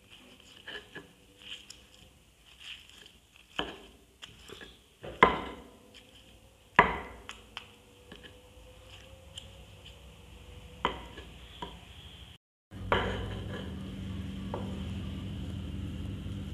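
Stone pestle (ulekan) knocking and grinding against a stone mortar (cobek), crushing chilies and tomatoes into sambal: irregular knocks, the loudest about five and seven seconds in. After a brief break past the middle, a steady low hum runs under the grinding.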